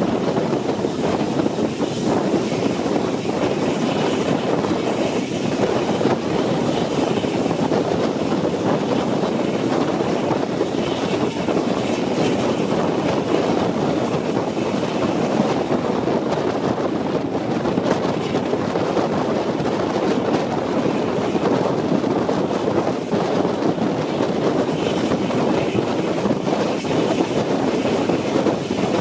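Steady rush of wind buffeting the microphone, mixed with the running noise of a train hauled by LNER A4 steam locomotive 4464 Bittern, heard from directly behind its tender.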